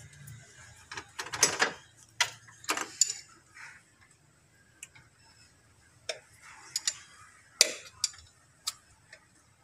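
Irregular sharp metallic clicks and taps of a wrench on the centre bolt of a Toyota 2C engine's timing-belt idler pulley as the bolt is worked loose. The pulley is coming off because its bearing is noisy and due for replacement.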